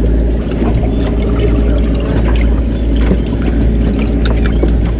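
Sportfishing boat's engine running with a steady low drone, and a few light clicks near the end.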